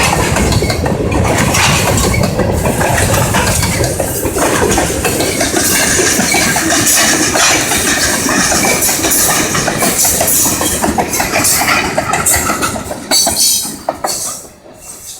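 Train cars rolling past, wheels clattering over the rails with metal clinks and knocks. The sound falls away sharply near the end.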